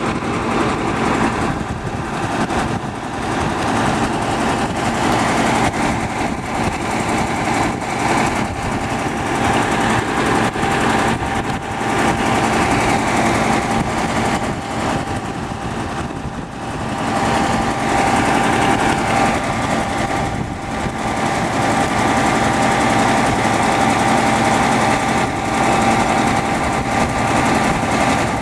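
Massey Ferguson 2775 tractor's Perkins V8 diesel engine running steadily, a constant drone with a held tone over it. Its level dips briefly a few times.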